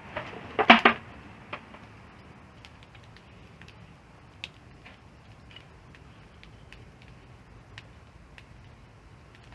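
Wood campfire crackling: a quick burst of loud pops and snaps just under a second in, then sparse single pops over a low steady hiss of burning wood.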